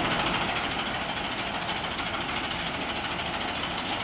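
Small electric motor of a toy crane whirring steadily as it winds its hook back up.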